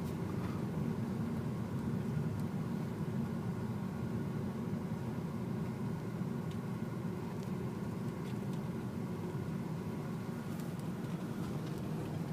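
Car driving slowly, heard from inside the cabin: a steady low rumble of engine and tyres, with a few faint clicks.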